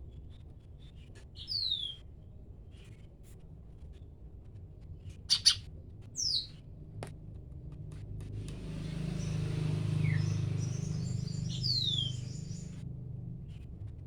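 Cucak ranting songbird calling: short, clear whistles that slide downward, repeated every few seconds, with two sharp, loud notes about five seconds in. A rushing background sound swells through the second half.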